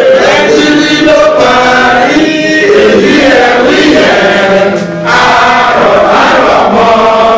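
A man chanting a blessing into a microphone, his voice amplified over the hall's sound system; the chant pauses briefly about five seconds in.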